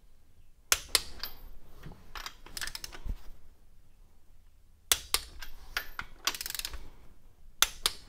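Socket wrench on the exhaust manifold nuts of a Ford Model A engine, ratcheting in short bursts of rapid clicks with a few sharp single clicks in between, as the nuts are tightened toward 35 foot-pounds.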